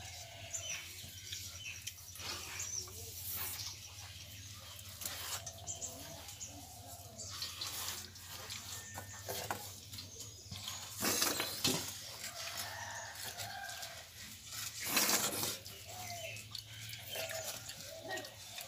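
Chickens clucking now and then in the background, with a few louder short noises near the middle.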